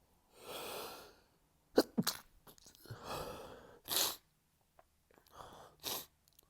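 A person sneezing again and again in an allergy sneezing fit: three sharp sneezes, each after a noisy drawn-in breath, the first the loudest.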